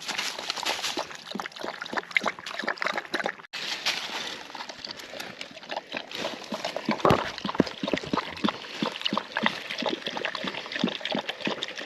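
A dog lapping water from a bowl in quick, irregular laps, with a brief break about three and a half seconds in.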